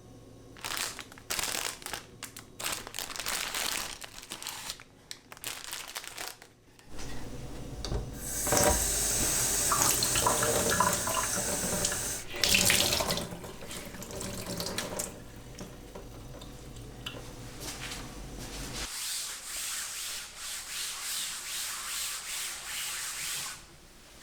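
A kitchen tap running into a sink, with washing and rubbing sounds under the running water. Short handling noises come before it.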